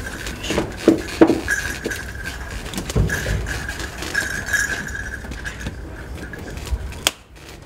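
Small clinks and knocks of hand work with tools and metal fittings, over a faint steady high whine. One sharp click comes near the end.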